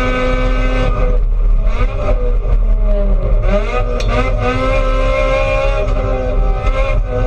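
Race car engine heard from inside the stripped cabin, running hard at steady revs. About a second in the note drops, then rises and falls again as the car goes through a corner.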